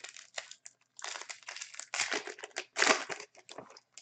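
Foil wrapper of an Upper Deck Artifacts hockey card pack being torn open and crinkled in the hands, an uneven run of rustling bursts, loudest about two and three seconds in.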